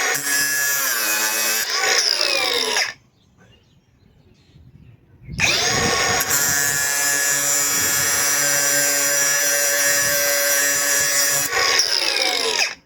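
Milwaukee M18 Fuel 6-inch brushless cordless angle grinder grinding off lag bolts, its whine dropping in pitch as it loads up. It winds down about three seconds in, then spins up again about two seconds later and runs steadily until it winds down near the end.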